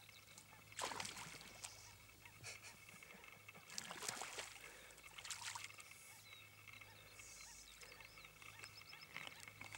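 Faint water lapping and splashing at the surface of a calm lake, in three short swells about a second, four seconds and five and a half seconds in, over a low steady background.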